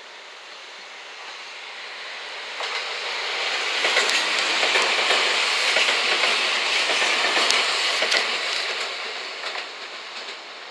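JR West 227 series electric multiple unit, two two-car sets coupled, passing close by on the rails. Its wheel-on-rail noise builds up, is loudest from about four to eight seconds in with a run of sharp clicks as the wheels cross rail joints, then fades as the train moves away.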